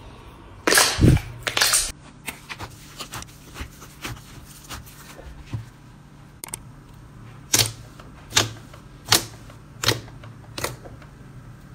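Slime being squeezed and poked by hands, giving wet clicks and pops: a loud squelchy burst about a second in, then a run of small crackles, with sharper pops coming about every three-quarters of a second near the end.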